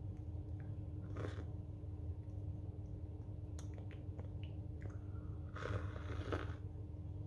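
Sips from a mug of hot coffee drink: a short slurp about a second in and a longer, louder one near the end, with a few faint clicks between, over a steady low hum.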